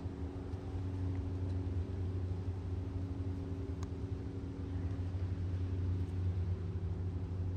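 A steady low mechanical hum that holds one constant pitch throughout.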